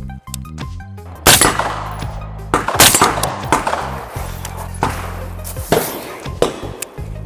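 Several shots from an AR-15 pistol, sharp cracks spaced a second or so apart, the loudest about a second in and near three seconds. Background music with a steady bass line runs under them.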